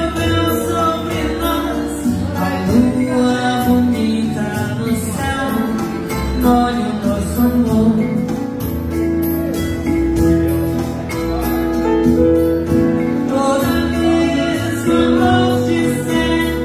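Singing over backing music, with sustained sung notes above a bass line and a regular beat.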